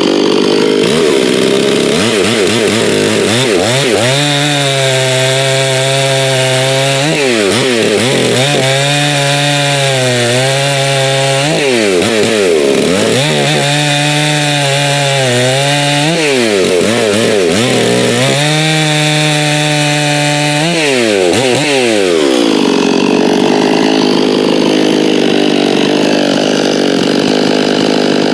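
Stihl MS 391 two-stroke chainsaw at full throttle cutting wood with its stock semi-chisel chain. The engine pitch sags under load and picks back up about four times, then runs on steadily near the end.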